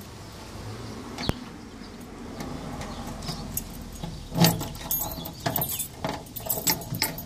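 A ring of keys jangling while a key is pushed into and turned in the lock of a steel Craftsman tool chest. A quick run of sharp metallic clicks and rattles starts about four seconds in, after a single click about a second in.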